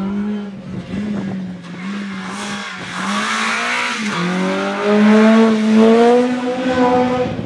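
Hatchback race car passing at speed in a hill-climb slalom. The engine revs hard, its pitch dipping and rising with the throttle through the first half, then climbing steadily as the car accelerates away, loudest about five to six seconds in. A rushing hiss rides over it as the car passes closest.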